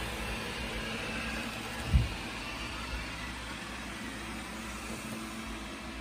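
Wyze lidar robot vacuum running across a hardwood floor: a steady whirring hum from its suction fan and brushes. One low thump about two seconds in.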